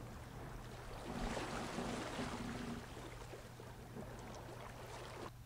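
Faint water sound, like gentle waves, swelling a little between one and three seconds in over a low steady hum.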